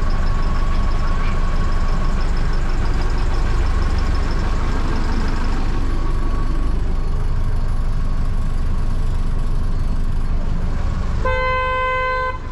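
Small motorboat's engine running steadily, a loud low drone, with a thin steady whine over it for the first half. Near the end a horn gives one blast of about a second.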